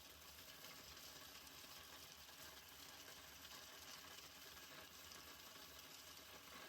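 Faint, steady sizzle of food cooking on the stove.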